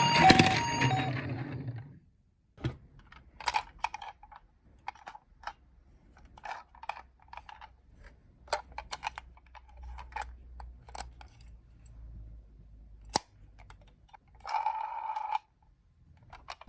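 A two-tone ambulance siren stops about a second in. A string of light, irregular clicks and taps follows, from small plastic toy cars being handled, with one sharper click. Near the end a brief tone sounds for about a second.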